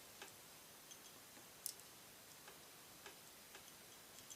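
Faint, irregular small clicks and taps of metal parts being handled as a front sight is worked into a Glock pistol slide, with one sharper click near the middle.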